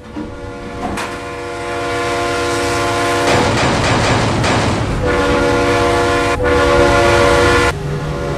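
A train horn blows a long multi-note chord over the rumble and clatter of a running train. About three seconds in it gives way to a noisy rush. It sounds again about five seconds in with a brief break, then cuts off near the end, leaving the rumble.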